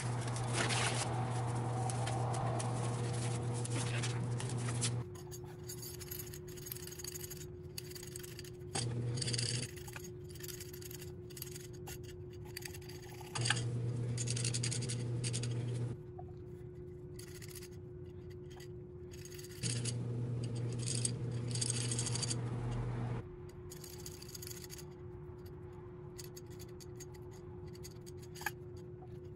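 Scattered small clicks, taps and scrapes of kitchen handling over a steady hum, which changes abruptly between a louder, hissier hum and a quieter single-tone hum several times.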